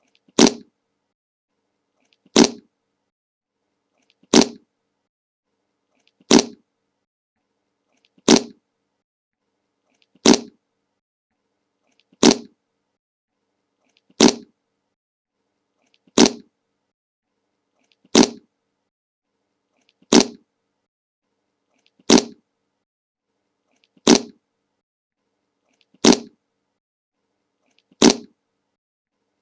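A short fart sound effect repeated at an even pace, once every two seconds: fifteen identical brief bursts, each starting sharply and dying away fast.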